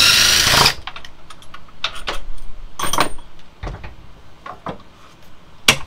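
Socket wrench and bolt on an engine mount: a short burst of rapid metallic clicking at the start as the last mount bolt is worked out, then scattered metal clinks and knocks, with one sharp knock near the end.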